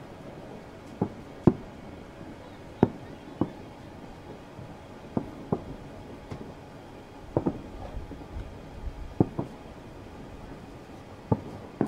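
Fireworks going off: about a dozen sharp bangs, many in quick pairs, spaced a second or two apart.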